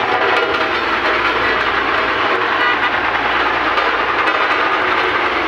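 Heavy diesel construction machinery running close by: a loud, steady mechanical clatter and rumble.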